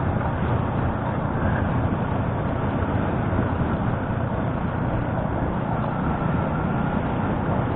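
Motorcycle riding at a steady pace: even engine, road and wind noise with no change in the engine's pitch.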